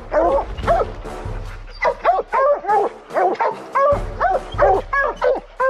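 Several hunting hounds howling and bawling together in overlapping rising-and-falling calls, with a short lull about a second and a half in.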